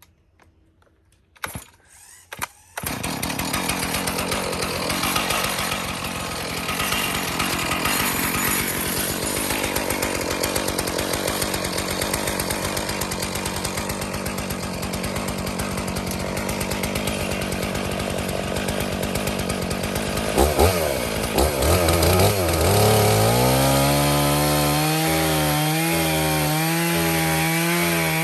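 Stihl MS461 chainsaw on an Alaskan chainsaw mill starting about three seconds in after two short sounds, then running loud and steady through cedar. Around twenty seconds in its pitch wavers, then settles into a steady tone.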